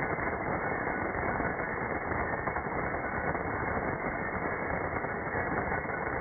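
A stream of small plastic balls pouring onto a pile of steel wrenches, making a dense, continuous rattle.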